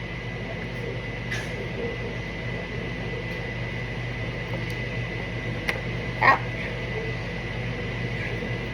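Steady hum of a running kitchen appliance with a thin high whine over it. A few light clicks and knocks of bowl and utensil handling break in, the loudest about six seconds in.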